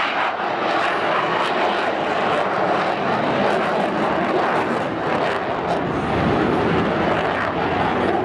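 F/A-18 Hornet fighter jet flying by, its twin jet engines making a steady, loud rushing noise.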